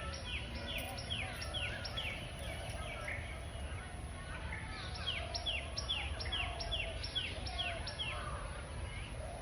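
A bird calling in two runs of short, sharply falling notes, about two to three a second, the first lasting about three seconds and the second starting about five seconds in, over a steady low background rumble.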